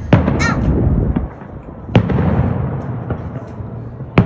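Aerial fireworks shells bursting: three loud bangs about two seconds apart, each followed by a rolling rumble and crackle.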